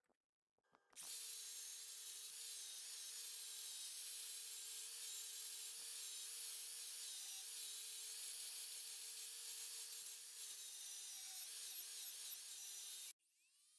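Angle grinder clamped in a bench vise, running steadily with an abrasive disc: a motor hum under a strong high hiss. It starts about a second in and cuts off abruptly near the end.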